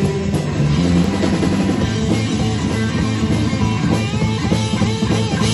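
A live rock band playing through amplifiers: electric guitar, bass guitar and drum kit, with the guitar's notes bending up and down about four seconds in.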